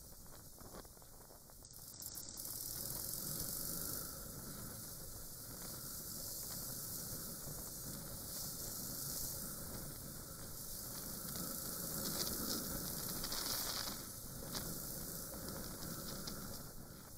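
Riding noise picked up by a dashcam's microphone on a Suzuki GrassTracker BigBoy motorcycle: a steady hiss of wind and road with the bike's engine running underneath. It gets louder about two seconds in.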